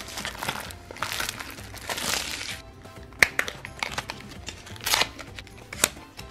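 Crinkly plastic packaging being torn and unwrapped by hand from a toy blind basket, then a few sharp clicks of hard plastic, over background music.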